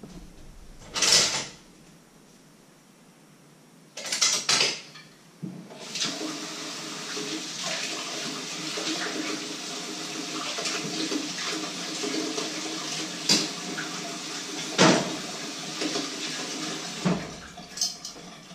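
Kitchen tap running into a steel sink for about ten seconds while dishes are washed, with a few sharp clinks and knocks of pots and dishes. Two short clatters of crockery come before the water starts.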